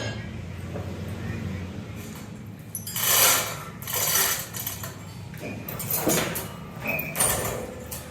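A workshop machine running with a steady low hum, with four short bursts of rasping, scraping noise over it, the loudest about three seconds in.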